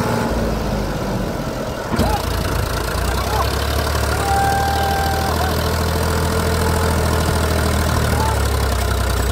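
Powertrac Euro 50 tractor's diesel engine running under load, trying to pull a loaded trolley out of mud; its low, steady note gets heavier about two seconds in. Short high calls sound a few times over the engine.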